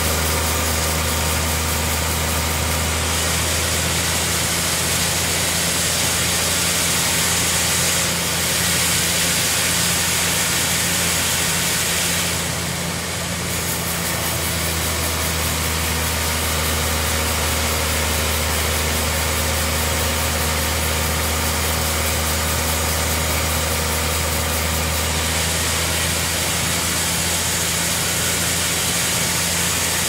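Large band sawmill running, its blade sawing lengthwise through a big hardwood log: a steady motor hum under a noisy cutting sound that swells and eases a few times.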